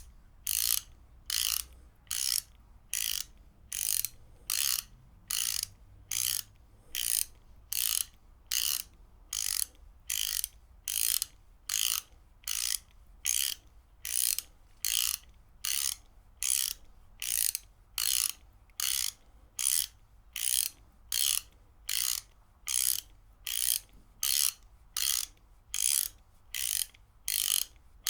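Ratchet wrench worked back and forth steadily, each swing giving a short burst of ratcheting clicks from the pawl. The bursts repeat evenly, a little under two a second.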